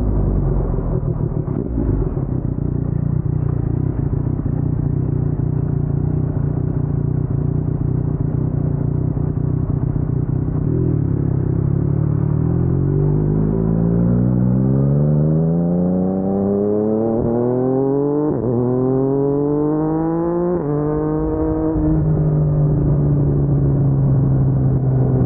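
Yamaha MT-09's crossplane inline-three engine through an Akrapovic carbon full-system exhaust, running steadily at low revs. About halfway through it accelerates, the pitch rising, dropping briefly at two gear changes, then holding steady at a higher pitch near the end.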